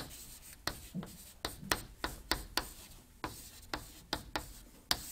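Chalk writing on a chalkboard: a string of short, sharp taps and scrapes, irregularly spaced at about three a second.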